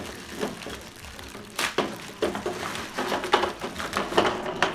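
Clear plastic bag rustling and crinkling as hands unwrap small hard plastic parts, with irregular clicks and knocks of the plastic pieces against each other and the table.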